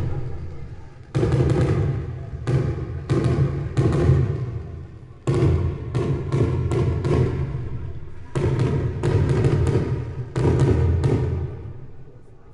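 Fireworks exploding overhead: a series of sharp bangs, some in quick clusters, each trailing off in a rolling echo over a second or so, fading down near the end.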